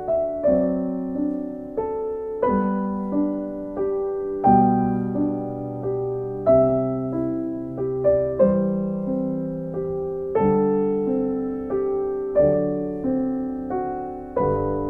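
Slow, gentle piano music: notes and chords struck and left to fade, with a new chord about every two seconds.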